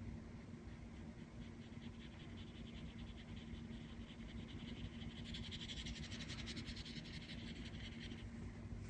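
Faint scratchy rustle of a watercolour brush working paint over paper, strongest about five seconds in and stopping near the end, over a steady low hum.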